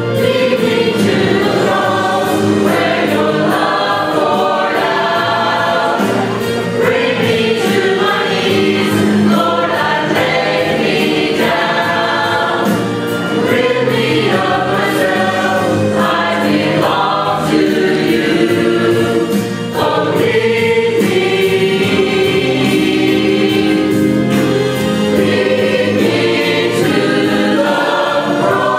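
Mixed church choir of men and women singing together, directed by a conductor.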